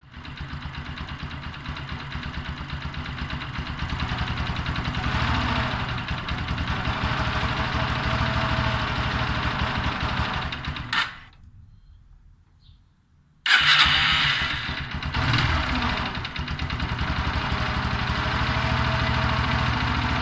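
Yamaha YBR 125's single-cylinder four-stroke engine running with a raspy, gargling noise that the owner finds strange. It goes quiet about eleven seconds in and runs again about two and a half seconds later.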